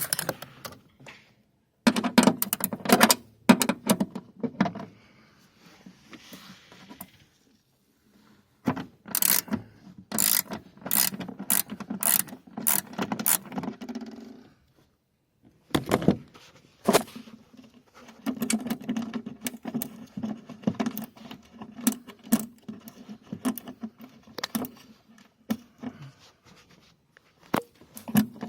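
A 10 mm ratcheting wrench clicking in bursts while a bolt is worked loose, mixed with metallic rattling and clatter from the tool being handled. Runs of quick clicks come in several spells, with short pauses between them.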